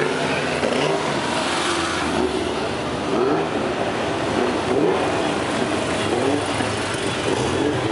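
Engines of several classic racing cars running and blipping as they crawl past in a line, engine notes rising and falling one after another.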